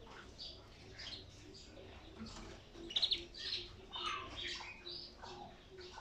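Several caged canaries chirping and calling in short scattered notes, with a loud quick trill about three seconds in.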